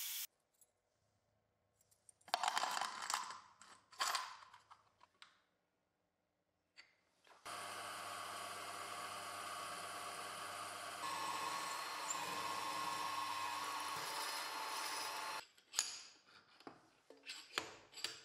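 Bench milling machine's spindle running steadily with a drill bit boring into a workpiece clamped to the table, its sound changing partway through the cut. Before it come a few short, loud scraping noises, and after it a handful of knocks and clicks as the machine is handled.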